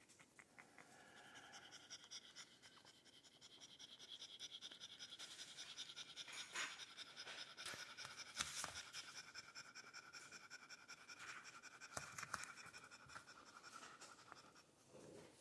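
French bulldog mother panting faintly and rapidly while she nurses her day-old puppies.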